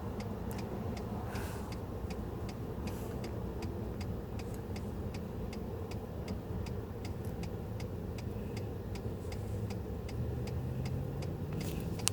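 Rapid, even ticking, about four ticks a second, over a steady low rumble; near the end a faint low hum rises slowly in pitch.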